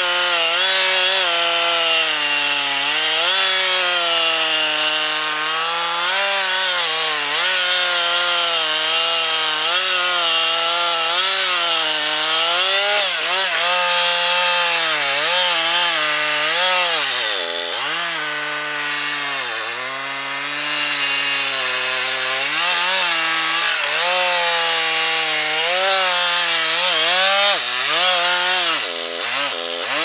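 Large Husqvarna two-stroke chainsaw running at high revs while cutting into a big tree trunk. Its engine pitch keeps wavering as the chain loads up in the wood, dropping lower a few times past the middle and again near the end.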